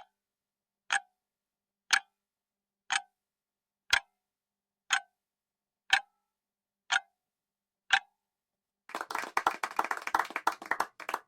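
Countdown timer sound effect: a clock tick once a second, nine ticks in all. About a second after the last tick comes a roughly two-second burst of dense, rapid clatter, like applause.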